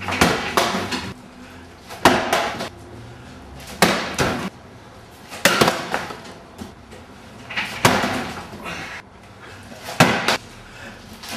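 A hand-thrown object of about 300–350 g hitting cardboard boxes hard, then falling and bouncing on the floor. Six throws about two seconds apart, each a sharp hit followed a fraction of a second later by a lighter knock.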